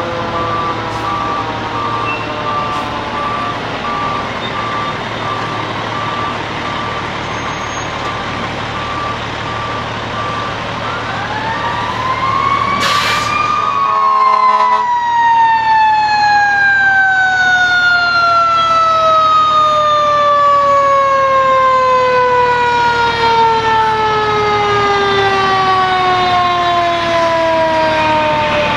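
Fire engine's siren winding down in long, slowly falling wails, with a brief rising wail about twelve seconds in.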